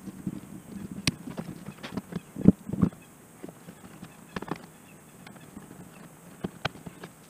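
Scattered knocks and clacks as hands handle wiring and hard plastic parts on an ATV's frame. The loudest two come close together about two and a half seconds in.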